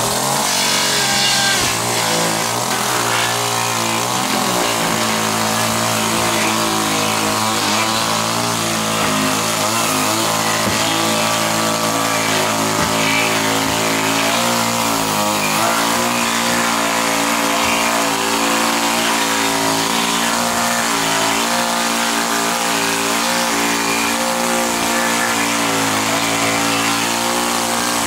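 Makita chainsaw running at steady high speed, cutting through wooden floorboards.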